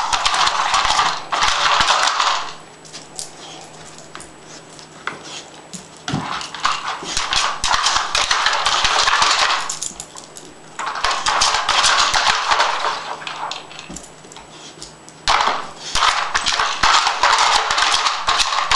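Hard plastic puzzle toy clattering and rattling as a puppy spins and knocks its stacked layers about, in four long bursts of rapid clicks and knocks with shorter quieter gaps between them.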